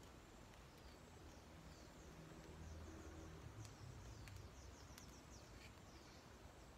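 Near silence: faint outdoor ambience with a bird chirping in the distance, quick high falling notes repeated in a series, thickest a couple of seconds in, and a few faint ticks.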